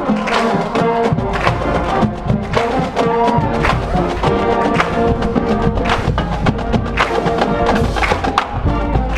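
Marching band playing: sustained brass chords over a steady beat of sharp drum and wood-block-like percussion hits.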